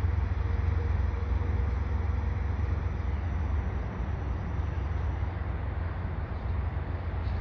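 The rear distributed-power diesel locomotive, a Canadian Pacific GE AC4400CWM, pushes at the tail of a freight train as it rolls away. It makes a steady low rumble that slowly fades.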